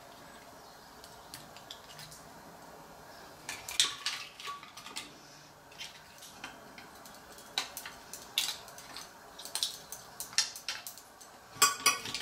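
Irregular light clinks and clicks of a metal spoon and mussel shells against a glass bowl and a metal pan, as opened mussels are picked out and set one by one around the dish, with a small cluster of clicks near the end.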